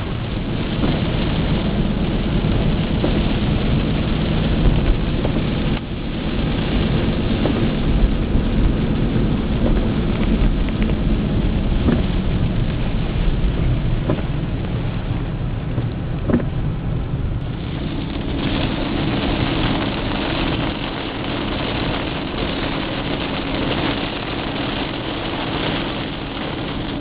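Rain beating on a car's windshield and body, heard from inside the moving car over a steady low rumble of road and engine noise, with a few sharp ticks of heavier drops.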